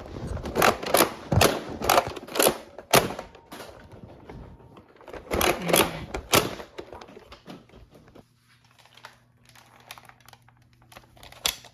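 Sharp plastic clicks and clacks of a Nerf blaster being reloaded and primed. A quick run of clicks comes over the first three seconds, another cluster comes about halfway, then softer handling over a faint steady hum.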